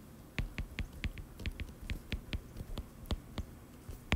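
Stylus tip tapping on a tablet's glass screen while handwriting: an irregular run of small sharp clicks, about four or five a second.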